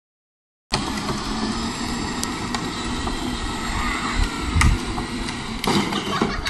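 Battery-powered ride-on toy cars driving on a concrete driveway, their electric motors running with a faint whine over steady outdoor noise. The sound cuts out for a moment at the start, and there is a low rumble a little past four seconds.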